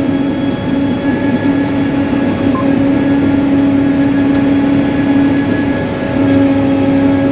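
Tracked farm tractor running steadily under load while pulling a planter, heard inside the cab as a constant droning hum with a steady whine.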